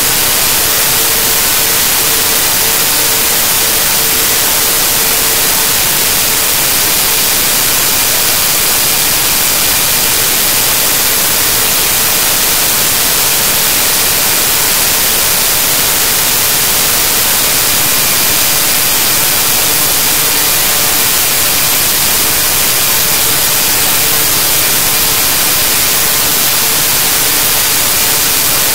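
Loud, steady static hiss, brightest in the high end, with a few faint steady tones underneath: noise from a corrupted stretch of the recording.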